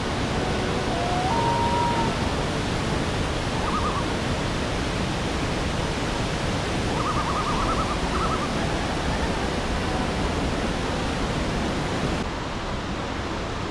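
Steady rushing of whitewater pouring over granite rapids on a mountain river, a little quieter near the end.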